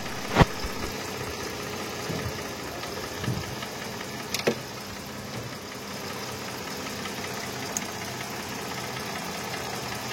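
Mercedes-Benz V6 engine idling steadily, with a few short sharp metallic clicks, the clearest about half a second in and about four and a half seconds in.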